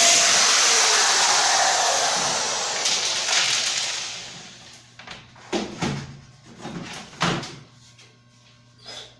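Electric drill running as it bores into wood, loud and steady for about four seconds before winding down. Several short, separate noises follow.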